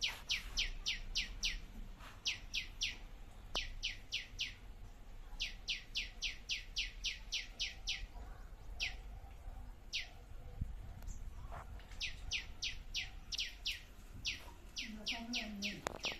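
A songbird singing repeated short series of quick, sharply falling whistled notes, about five or six notes a second, with pauses of a second or so between series and a couple of single notes in the middle.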